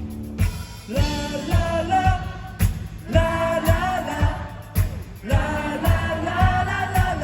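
Live pop-rock band playing with singing over a steady kick drum at about two beats a second.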